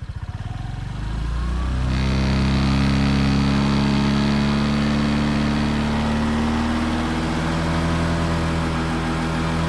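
Honda PCX scooter's single-cylinder engine running on its center stand. It goes from a pulsing idle to a faster, louder, steady buzz with a high whine about two seconds in, and the buzz holds to the end with its pitch drifting slightly lower.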